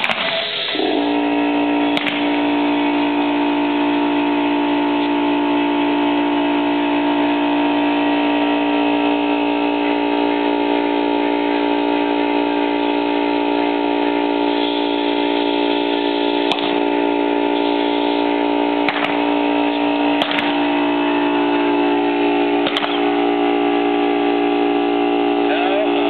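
A steady drone of several tones held together, shifting slightly in pitch about a third of the way in and again near the end. A few faint sharp cracks break through it, one about two seconds in and several more in the last third.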